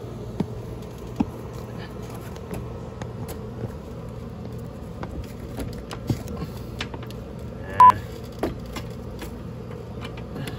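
Clicks and taps from working a DeWalt cordless drill and a self-tapping screw against a camper trailer's steel frame, over a steady low hum. About eight seconds in comes one brief, loud, shrill squeal.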